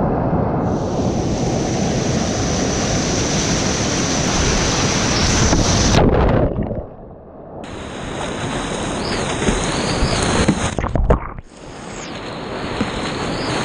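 Loud rushing whitewater from big river rapids, with waves crashing and splashing over a kayak close to a helmet or boat-mounted action camera. About six seconds in the sound drops to a dull, muffled wash as the camera is submerged, then the rush of the rapids and splashing comes back, with a few sudden splashes near the end.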